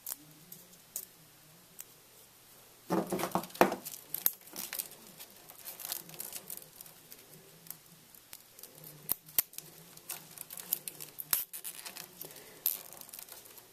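Plastic zip tie being worked around a bundle of PC power cables: scattered small clicks, rustles and crinkling of plastic and cable insulation being handled, with a brief louder sound about three seconds in.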